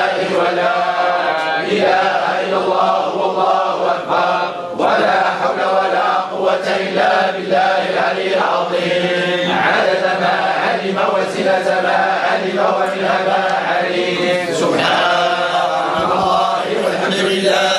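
A group of men chanting together in unison, a continuous Sufi devotional chant with no pauses.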